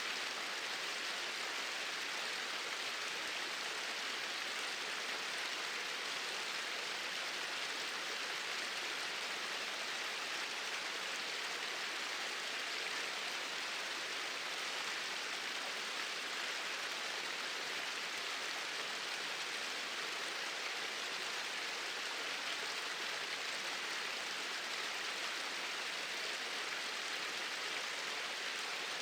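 Water pouring over a small waterfall: a steady, even rush of falling water that does not change.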